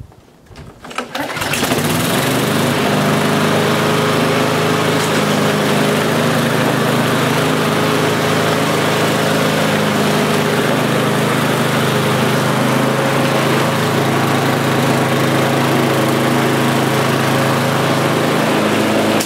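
Briggs & Stratton four-stroke engine on a Hayter Spirit 41 petrol lawnmower starting about a second in, then running at a steady speed.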